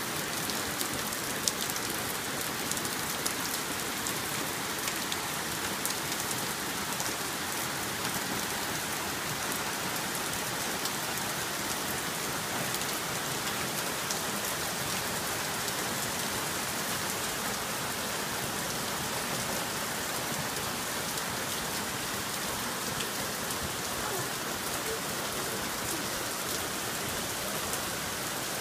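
Heavy rain pouring steadily onto a wooden deck and leafy trees: an even hiss of downpour with many sharp ticks of nearby drops striking, one louder tick about a second and a half in.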